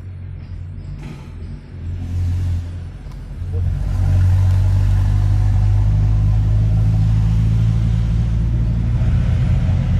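A heavy road vehicle's engine running close by, a low steady drone that grows louder about three and a half seconds in and then holds.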